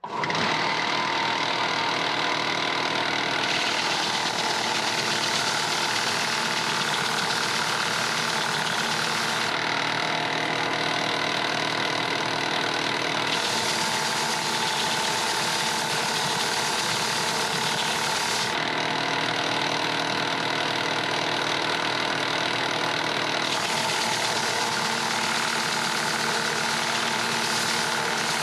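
Small bench belt sander running steadily, with a rough high hiss that comes and goes every few seconds as an African mahogany piece is pressed to the belt. The machine sounds poorly, which the owner puts down to the sander being worn out and on its way out.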